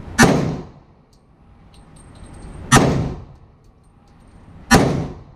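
Three shots from a Glock 31 in .357 SIG fitted in a CAA Micro Conversion Kit carbine, each a sharp crack with a short echoing tail off the walls of an indoor range. The shots come about two and a half seconds and then two seconds apart.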